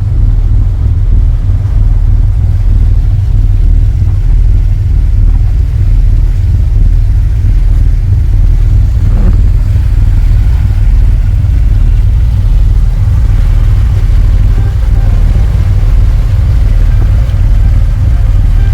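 A motor yacht's inboard engines running steadily underway, a loud, even low rumble.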